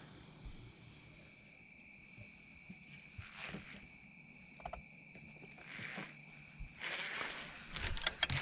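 Clothing rubbing against the microphone in brief swishes, growing denser and louder near the end, over two faint steady high-pitched tones.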